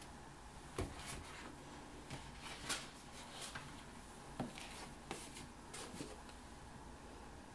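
Handling noise from a sheet of paper being fetched and picked up: scattered soft knocks and rustles over faint room tone.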